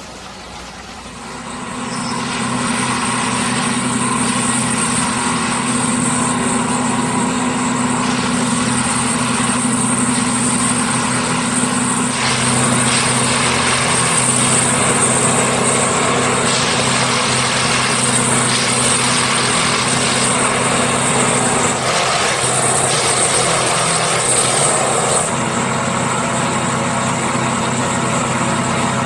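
Railway track tamping machine's diesel engine running steadily, a deep even hum with a high whine over it, coming up to full loudness about two seconds in. The engine note shifts about three quarters of the way through, then settles again.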